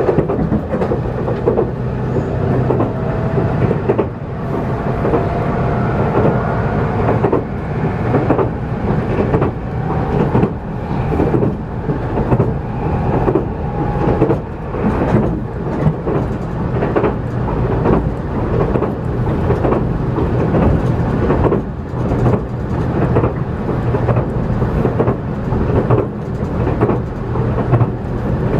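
Interior running noise of a JR Kyushu 783 series electric train at speed: a steady low rumble broken by frequent clacks from the wheels on the rails. A faint whine rises slowly in pitch through the first half.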